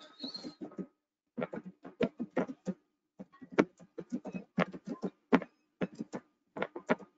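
Music with a beat and singing, coming through in short choppy bursts as picked up by a video-call microphone.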